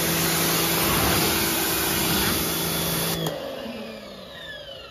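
Karcher K1900PS electric pressure washer running with its water jet spraying, a steady motor hum under the hiss of the spray. About three seconds in, the spray stops and the motor winds down with a falling whine.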